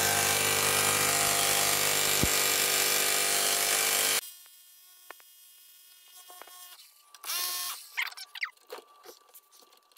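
SDS rotary hammer (jackhammer) running steadily, hammering against the seized, corroded rear wheel bearing hub assembly of a 2012 Subaru Outback, then cutting off suddenly about four seconds in. The bearing stays seized: the hammering does not free it.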